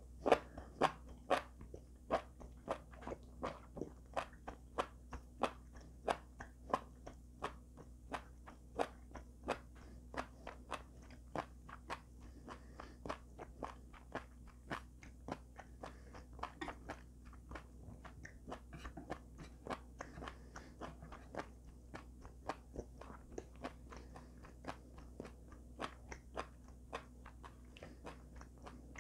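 Close-miked chewing of steamed enoki mushrooms: a steady run of crisp, moist bites and clicks, about two a second, loudest in the first few seconds and softer later.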